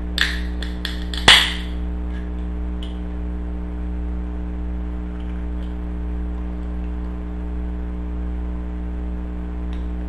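Tall aluminium can being opened: a few light clicks as a finger works the ring-pull tab, then a sharp crack with a brief hiss as it pops open, about a second in. A steady hum runs underneath throughout.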